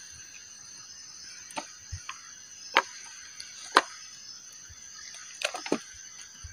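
Campfire crackling, with irregular sharp pops and snaps of burning wood, over a steady high-pitched trill of insects.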